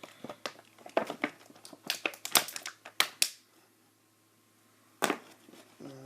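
Toy packaging being handled and crinkled, with a quick run of sharp crackles over the first three seconds, a short lull, then one more crackle about five seconds in.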